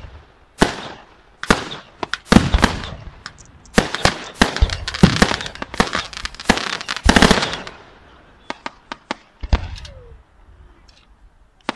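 Aerial fireworks bursting overhead in a rapid, irregular string of sharp bangs and crackles, densest in the middle, then thinning to a few scattered pops near the end.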